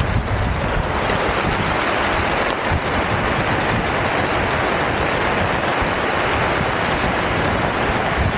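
Steady rain falling on a tarp overhead, with gusts of wind buffeting the microphone.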